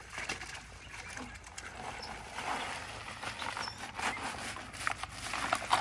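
Live crawfish rustling and clicking as a mass of them is handled in a container for washing, their shells scraping and clattering against each other, with a few sharper clicks near the end.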